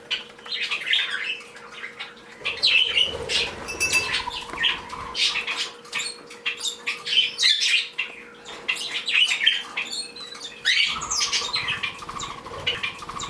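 A room of small pet birds, budgies and Bourke parakeets, chirping and chattering, many short calls overlapping with brief lulls.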